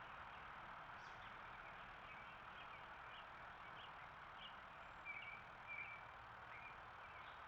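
Birds chirping faintly in short, repeated notes over a steady outdoor hiss, with two slightly louder chirps a little past the middle.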